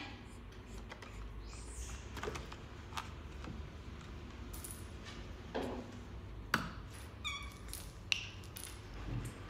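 Light taps, knocks and rustles of a small cardboard box being handled and knocked on a wooden surface by a baby monkey, with a brief high squeak near the end.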